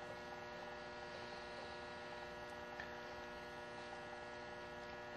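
Faint, steady electrical mains hum made of several steady tones, with one light tick a little under three seconds in.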